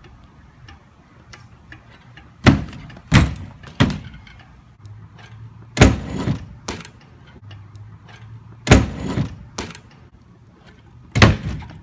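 BMX bikes knocking and banging as they land on and ride off a box: a string of loud, sharp impacts, three close together about two and a half seconds in, then two more, then single hits about nine and eleven seconds in.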